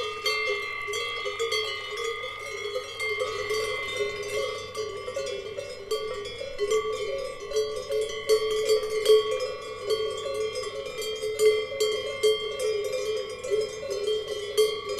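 Cowbells on grazing cows clanking continuously and irregularly, several bells ringing over one another with many uneven strikes.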